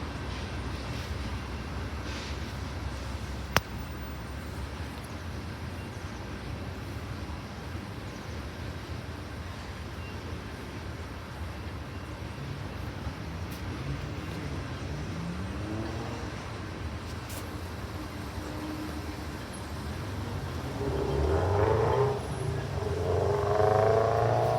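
Slow freight train rolling past with a steady low rumble and a sharp click a few seconds in. Toward the end a vehicle engine grows louder, rising in pitch as it speeds up.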